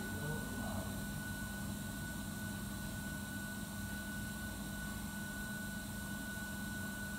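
Steady hum of kitchen machinery: a constant high whine over a low drone, with a faint short clatter about half a second in.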